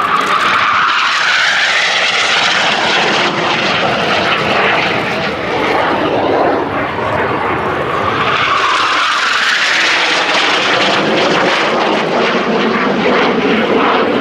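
Jet noise from a Northrop F-5E Tiger II's twin J85 turbojets as the fighter flies past, a loud continuous rushing roar. The pitch of the hiss sweeps upward near the start and again about nine seconds in as the aircraft passes and turns.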